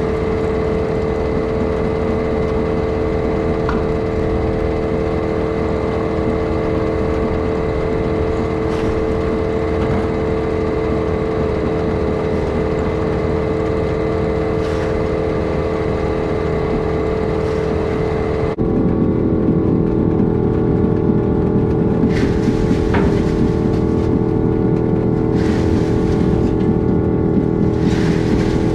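Silo ventilation blower and conveyor running with a steady, humming drone. About two-thirds of the way in the sound turns louder and rougher, and forked-out haylage falling down the silo chute adds a few sharp thumps.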